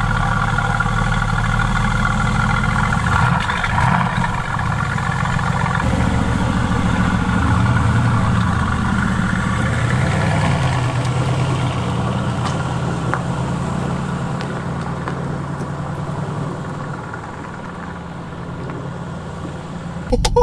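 Mercedes-AMG GT S twin-turbo V8 idling just after start-up, heard close behind its exhaust. The engine note changes about six seconds in, and the sound then fades somewhat as the car moves slowly away.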